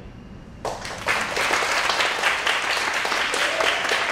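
An audience applauding, breaking out suddenly less than a second in after a brief quiet and holding steady.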